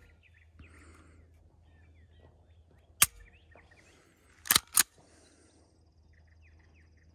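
Walther PDP F-Series pistol dry-fired on an empty chamber to show the trigger reset: one sharp click about three seconds in, then a quick pair of clicks about a second and a half later. Faint bird chirps underneath.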